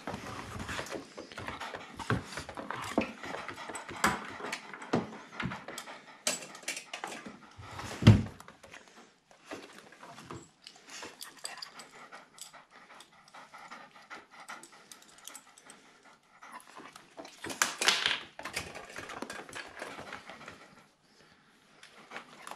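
Cocker spaniel panting with excitement, with scattered small clicks, one sudden loud thump about eight seconds in and a louder stretch of panting near eighteen seconds.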